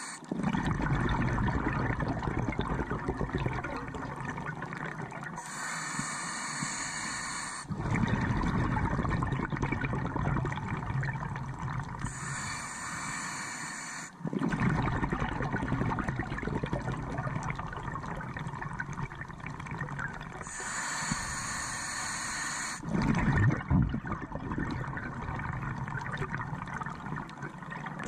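Scuba diver breathing through a regulator underwater, heard through the camera housing: long exhalations of bubbling rumble alternate with shorter hissing inhalations, about one breath every seven seconds.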